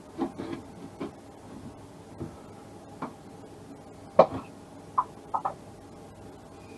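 Irregular knocks and clicks of metal lathe parts being handled and fitted, the loudest a sharp knock about four seconds in followed by three short ringing clicks; the lathe is not running.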